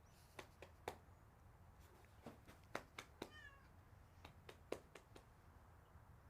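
Domestic cat giving one short, faint meow a little past the middle, among scattered light clicks.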